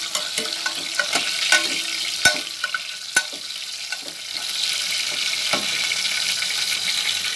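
Garlic, onion and long chilies sizzling in hot oil in a pan, with a metal spatula clicking and scraping against the pan as they are stirred in the first few seconds. After about four seconds the sizzle becomes steadier and a little louder.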